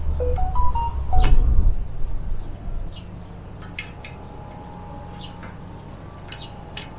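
Handling noise from fitting rim tape onto a bicycle wheel rim: knocks and a low rumble for the first two seconds, then faint light clicks. A bird gives a few short chirps in the first second.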